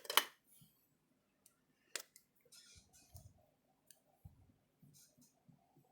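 Pen writing on cardstock: faint, scattered scratching strokes, with a sharp click right at the start and another about two seconds in.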